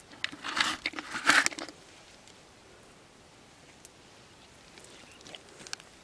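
A fish dropped into a plastic bucket, flapping and knocking against it in a burst of scraping and clicks for about a second and a half. Faint crunching of hands in dry, crumbly soil follows near the end.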